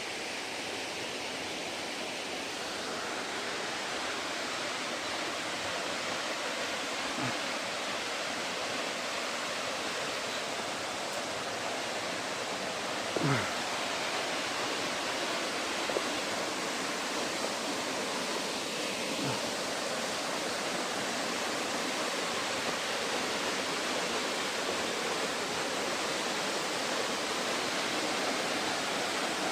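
Steady rush of flowing water, growing slightly louder, with a few soft knocks, the strongest about thirteen seconds in.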